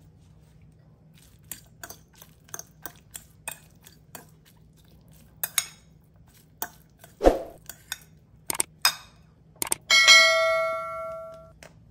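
Metal fork clinking and scraping against a glass bowl in irregular taps while a salad is mixed, with a duller knock about seven seconds in. Near the end a click, then a bright bell ding that rings for about a second and a half: a subscribe-notification sound effect.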